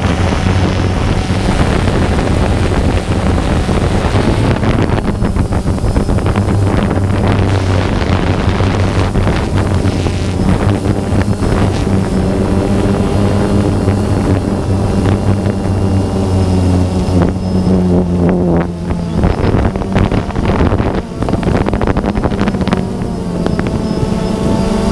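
Multirotor drone's motors and propellers running loudly, heard from a camera on the drone itself, the pitch shifting up and down as it climbs and manoeuvres. Wind buffets the microphone at times.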